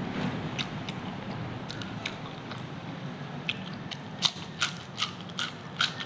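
Close-up mouth sounds of someone eating: chewing with crisp crunches as he bites into a piece of green vegetable. The crunches come louder and more often from about four seconds in.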